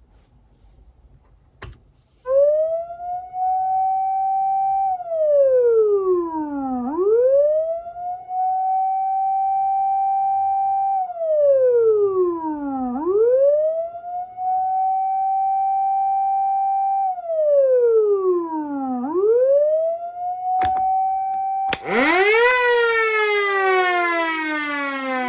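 Osaka Siren TS-200 electronic siren amplifier sounding a fire-engine wail. After a click it repeats a cycle every six seconds, four times: a quick rise to a high held tone, then a long slow fall. Near the end, after two more clicks, a motor siren comes in loud with a rich, rough tone and begins to wind down in pitch.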